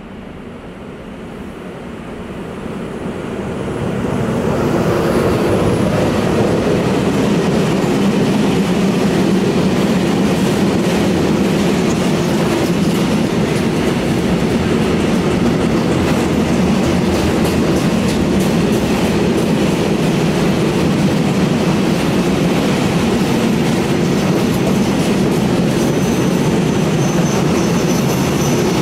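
Freight train behind an electric locomotive passing close by. The sound grows over the first four seconds as the locomotive draws near, then holds as the steady, loud rolling noise of open and tank wagons going past, with a faint high wheel squeal near the end.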